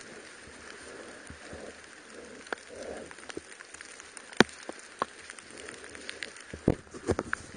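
Footsteps moving through forest leaf litter and twigs: irregular crunches and snaps, with a sharp crack about four seconds in and a cluster of louder ones near the end.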